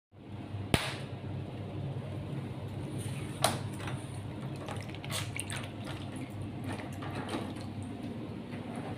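Water running and splashing in a bathtub over a steady low hum, with two sharp knocks: one under a second in and another about three and a half seconds in.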